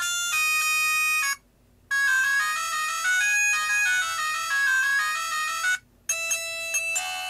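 Built-in electronic ringtones of a cheap iPhone 2G clone phone playing through its loudspeaker as the ringtone list is stepped through. Three different tunes in turn: each stops abruptly, once about a second and a half in and again near six seconds, and after a brief silence the next one starts.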